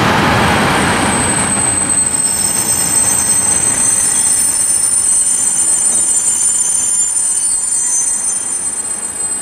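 A train running on the line at a station: a loud rumble that eases after about two seconds, then a thin, high-pitched squeal from the train that holds steady while the whole sound slowly fades.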